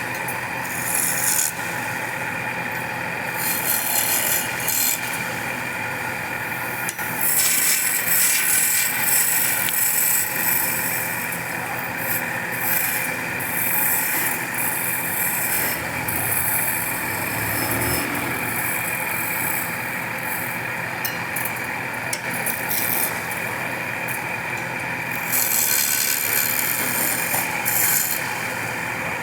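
Wood being shaped by a power tool: a steady machine hum with stretches of rough scraping and rasping as the tool cuts into the wood, coming and going every few seconds.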